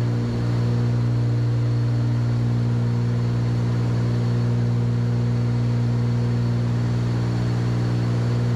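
Cessna 310's twin piston engines and propellers droning steadily in the climb, heard inside the cockpit: an even low hum with a stack of steady overtones and a faint thin high tone above it.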